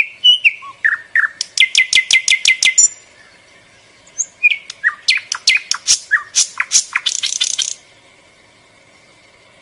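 A small songbird chirping in two quick runs of sharp, high notes, several notes a second, the second run starting about five seconds in and stopping near eight seconds.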